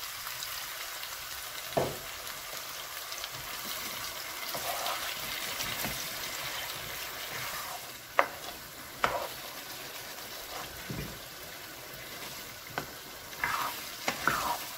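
Chicken and cauliflower pieces sizzling in a pan of masala just after a little water goes in, while a spatula stirs them. The steady sizzle is broken by a few sharp knocks of the spatula against the pan.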